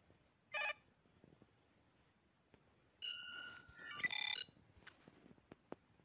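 Star Trek LCARS-style computer interface sound effects: a short electronic chirp about half a second in, then, about three seconds in, a louder run of high beeps and a fast warbling trill lasting about a second and a half.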